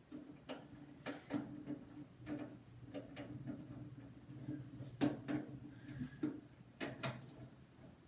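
Precision screwdriver driving screws into a Dell Inspiron 530's steel case: irregular sharp clicks and scrapes of the bit and screw against the metal, over a low steady hum.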